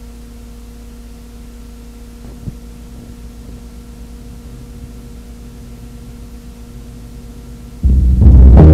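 Steady electrical hum with a few faint steady tones and one small click about two and a half seconds in. Near the end loud music with a strong beat starts abruptly.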